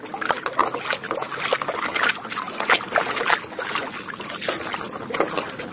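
Muddy water sloshing and splashing in a plastic tub as a plastic toy gun is swished back and forth to wash it, with irregular splashes throughout.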